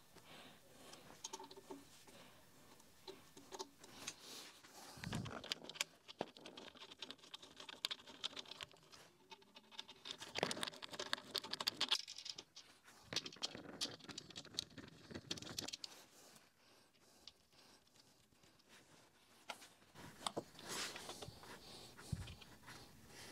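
Hand assembly of a metal laser-engraver frame: irregular small clicks, scrapes and rattles of an Allen key, screws and aluminium parts being handled, with a low thump about five seconds in and another near the end.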